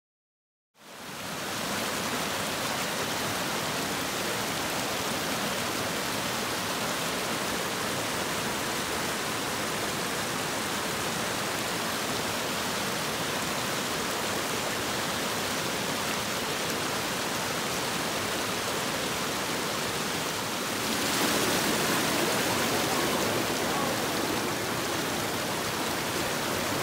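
Shallow mountain creek rushing over rocks: a steady wash of water that starts about a second in and gets louder near the end.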